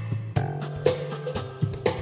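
Instrumental background music with a steady drum beat, about two hits a second, over a bass line.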